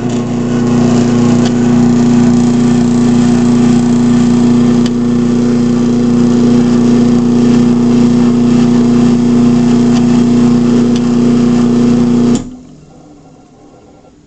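Craftsman half-horsepower chain-drive garage door opener running through a full travel: a loud steady motor hum that stops abruptly about twelve seconds in as the opener reaches its limit.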